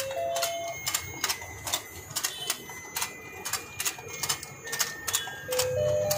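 Battery-operated toy fishing game running: its turning mechanism clicks repeatedly, a few times a second, while a thin electronic tune plays in short notes.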